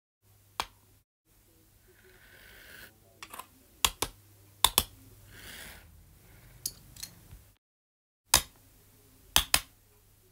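Irregular sharp clicks and knocks, several in quick pairs, over a low hum with two brief hissy swells. The audio drops abruptly to silence a few times, as in a pieced-together soundtrack for a stop-motion animation.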